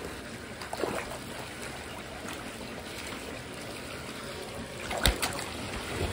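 Water trickling and churning in a tank crowded with tilapia, with a small splash about a second in and a sharp splash about five seconds in as a large tilapia is let go back into the water.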